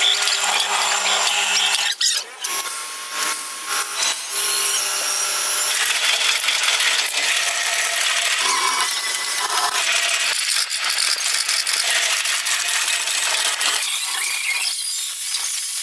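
Metal-stamping presses running, a steady mechanical noise with many sharp metallic clicks and clanks as steel parts for oil filters are pressed out.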